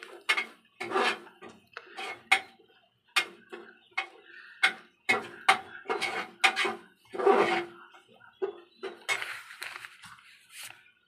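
Metal ladle scraping and clinking against the sides of a pressure cooker pot while stirring thick masala gravy. The clicks come irregularly, several a second, and thin out near the end.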